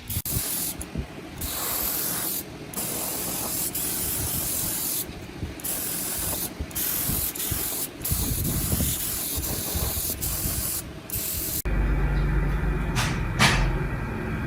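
Pressurised spray hissing in bursts with short pauses between them. About three-quarters of the way through it cuts to a steady low hum with a couple of brief scrapes.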